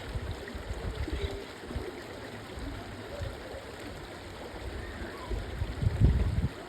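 Steady rush of flowing water, with irregular low rumbling gusts on the microphone, loudest about six seconds in.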